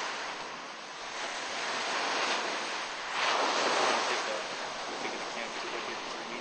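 Ocean surf washing ashore, swelling and easing twice, with wind on the microphone.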